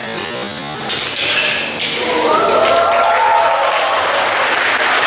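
A couple of sharp knocks about a second in, then an audience breaks into applause that builds and carries on.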